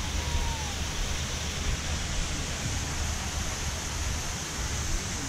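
Steady outdoor rushing noise with a fluttering low rumble, and a faint brief whistle-like glide early on.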